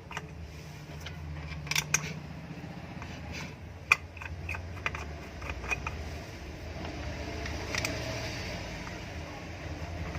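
Small metal clicks and light scraping as screws are fitted by hand into a ceiling fan's motor cover, over a steady low hum.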